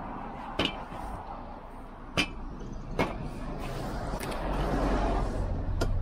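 Tow dolly wheel-strap ratchet clicking a few times: sharp, separate metallic clicks a second or more apart, with a low rumble swelling after the middle.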